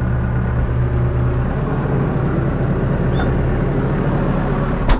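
Tractor engine running steadily as the tractor moves off pulling a potato planter, the note of the engine changing a second or two in. A single sharp click near the end.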